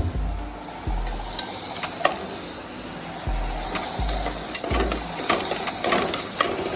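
Food sizzling as it fries in a pan, stirred with a utensil that clicks now and then against the pan.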